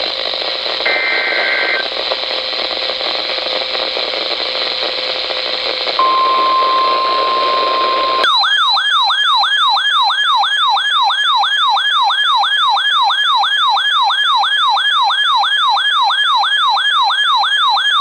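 RadioShack NOAA weather radio receiving an emergency alert through heavy static. About a second in comes a short burst of the warbling EAS/SAME header data tones, then hiss, then the steady 1050 Hz weather-radio alert tone for about two seconds. From about eight seconds in the radio sounds its own alarm, a loud falling warble repeating about three times a second, signalling a severe thunderstorm warning.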